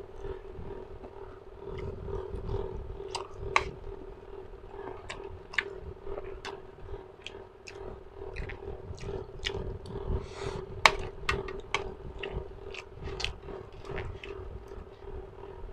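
A person chewing food close to a clip-on microphone, with wet mouth clicks and smacks and occasional sharper clicks, over a steady low hum.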